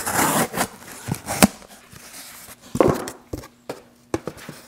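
A cardboard template being trimmed and handled: a burst of rustling and scraping at the start and another about three seconds in, with several sharp clicks and taps between and after.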